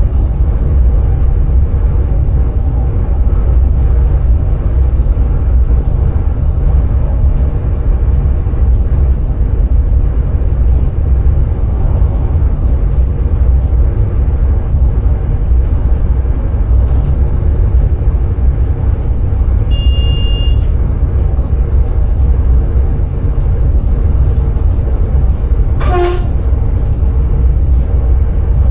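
Driver's cab of a Sprinter electric train running along the line: a steady, loud low rumble of wheels and running gear. About two-thirds of the way in a short, high electronic beep sounds once, and near the end there is a single sharp click.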